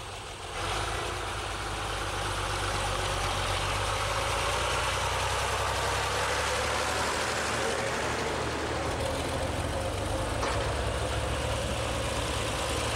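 Farm tractors towing wagons drive slowly past close by, their engines running steadily at low speed. The sound jumps up about half a second in as the first tractor draws level.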